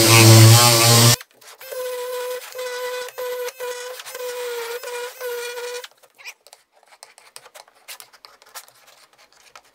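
A SurfPrep 3x4 air-powered sander, fitted with film abrasive over a foam interface pad, rounding over the edges of a raw wood panel. It runs in about seven short stretches of a steady whine that cuts in and out, from about a second in to about six seconds in. After that come faint scattered scratches and ticks as the edges are distressed with a hand tool.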